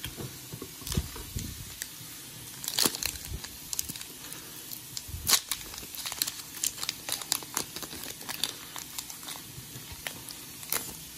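Foil wrapper of a Pokémon Chilling Reign booster pack crinkling and crackling in the hands as it is handled and opened, a run of small irregular crackles with sharper ones about 3 and 5 seconds in.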